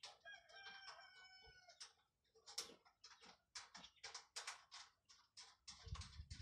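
Faint chicken calling: one drawn-out call of about a second and a half near the start, followed by a scattered run of short, sharp clicks.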